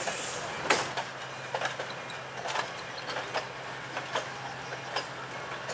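Railroad passenger coaches rolling past, their wheels clicking over rail joints about once a second, with a low steady hum underneath.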